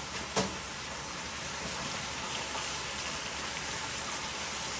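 Food frying in hot oil, a steady crackling sizzle, with one short knock about half a second in.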